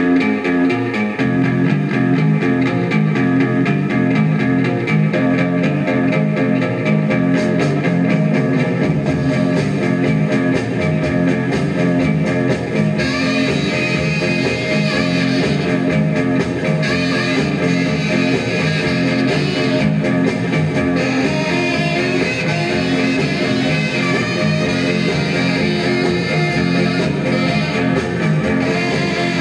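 Guitar-led pop music with bass, played from a 45 rpm record through a 1956 RCA 7-HF-45 Orthophonic record player's four-tube amplifier and separate woofer and tweeter, with the lid closed. The level stays steady, and the top end gets brighter about halfway through.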